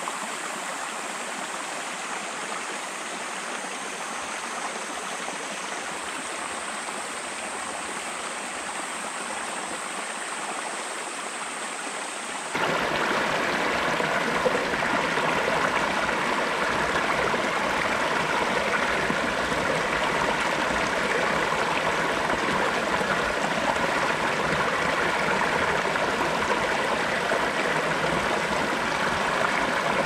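Mountain stream rushing over rocks, a steady wash of running water. About twelve seconds in it abruptly becomes louder and deeper.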